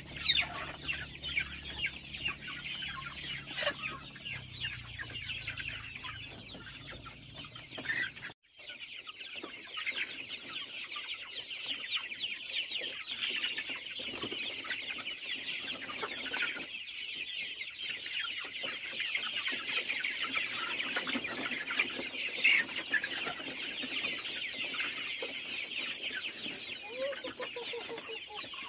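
A large flock of young chickens calling continuously, a dense chatter of short high cheeps and clucks, with a momentary break about eight seconds in.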